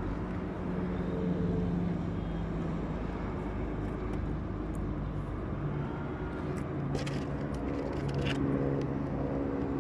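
Steady drone of a car engine, its pitch stepping to a new level about six seconds in, with a few short clicks or rustles near the end.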